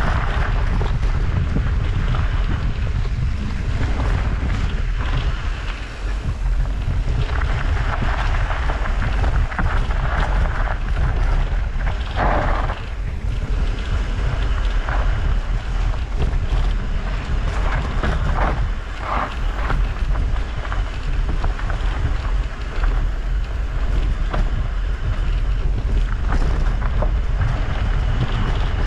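Wind buffeting the microphone of a camera on a moving mountain bike, with a steady low rumble and rushing trail noise from tyres over dirt and brushing grass. It swells briefly about twelve seconds in and again near nineteen seconds.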